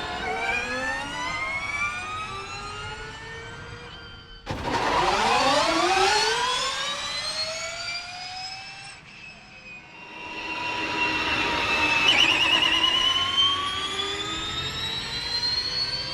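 Formula E season 3 electric race cars' drivetrain whine, rising in pitch as they accelerate. A sudden cut about four and a half seconds in brings a louder car whose whine climbs again, and a third rising whine builds from about ten seconds in.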